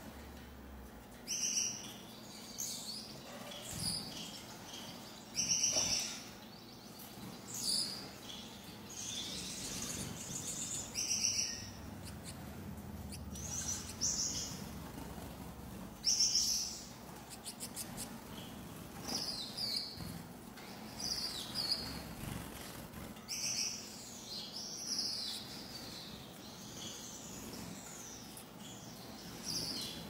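Caged Gouldian finches calling: short, high-pitched chirps and brief chattering bursts every one to three seconds.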